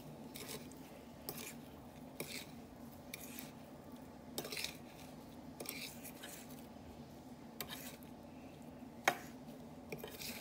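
Kitchen utensils scraping and clinking against a bowl in short, scattered strokes while raw chicken is coated in breadcrumbs, over a faint steady hum. The sharpest clink comes about nine seconds in.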